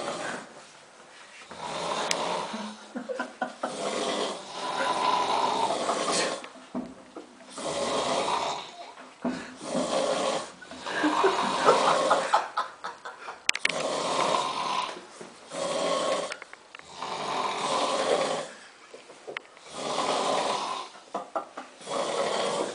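A man snoring heavily in his sleep, loud and regular, one snore every second or two with short quiet gaps between them.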